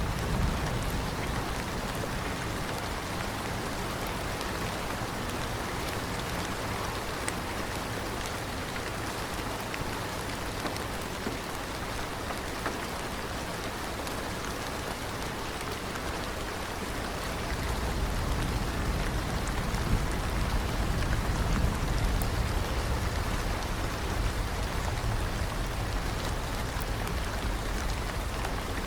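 Steady rain falling on a surface, with scattered individual drops. A deeper low rumble swells in a little past the middle and stays to the end.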